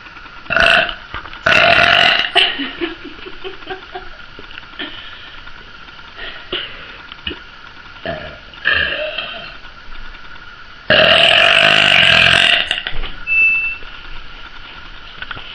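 A woman burping several times: a short burp just after the start, a longer loud one about a second and a half in, a smaller one near nine seconds, and a long loud burp about eleven seconds in that lasts nearly two seconds.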